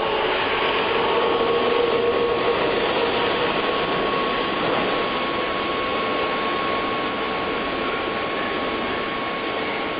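A steady mechanical hum and hiss with a faint, high, steady tone running through it.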